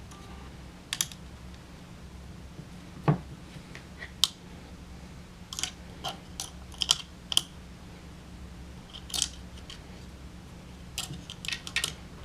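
Irregular small metallic clicks and taps as the screws, nut and clamp parts of a flashlight mount are worked by hand on an AR-15 front sight post. One duller knock comes about three seconds in, and the clicks bunch up around the middle and near the end.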